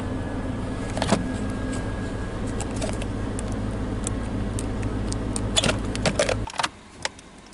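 Chevy Tahoe engine idling steadily, with plastic clicks and rattles from the anti-theft module connector and harness being handled and unplugged. The engine cuts out about six and a half seconds in.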